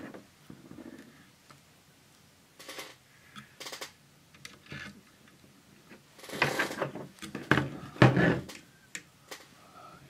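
Clicks and knocks of a small aluminium instrument chassis and its screws being handled on a workbench during reassembly, scattered at first, then a louder run of knocks and clatter about six to eight and a half seconds in as the chassis is picked up and turned.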